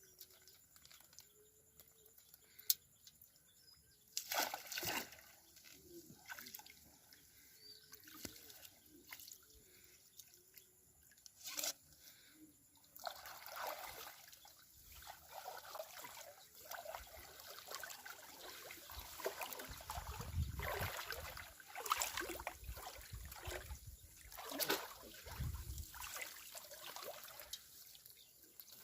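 Shallow water trickling and sloshing, with irregular splashes that grow busier in the second half.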